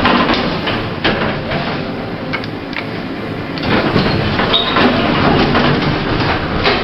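1980s Thyssen passenger lift doors sliding, with irregular clunks and rattles over a noisy background.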